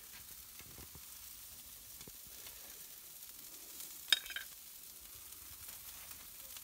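Limpets in their shells sizzling on a charcoal grill, the oil and juices inside the shells boiling, which shows they are done; a faint, steady sizzle with one sharp click about four seconds in.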